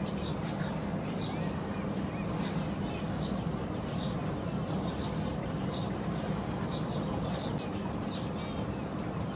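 Many small birds chirping, with short high calls coming two or three times a second over a steady low hum.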